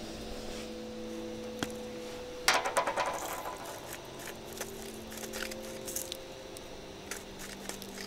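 Small hand-twisted seasoning grinder being worked by hand. A burst of gritty, rattling clicks comes about two and a half seconds in, followed by a few lighter clicks.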